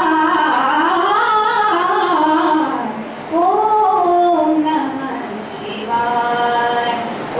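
A woman singing solo and unaccompanied into a handheld microphone. Her melodic phrases rise and fall, with a brief break about three seconds in and a long held note near the end.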